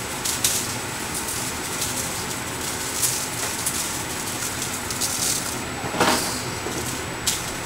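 Coarse kosher salt shaken from its box onto a raw beef roast in a foil-lined pan: a few brief hissing sprinkles, one louder about six seconds in, over a steady background hum.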